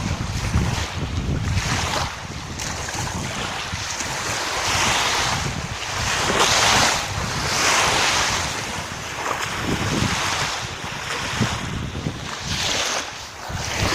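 Sea waves washing and splashing, swelling and fading every second or two, with wind buffeting the microphone in a low rumble.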